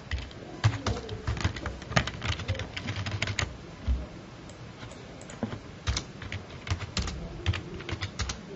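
Computer keyboard typing: quick runs of irregular keystrokes, with a lull of about two seconds around the middle.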